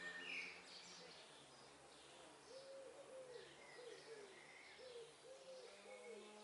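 Faint pigeon cooing: a run of low hooting calls starting about two and a half seconds in, with a small bird chirping briefly at the start.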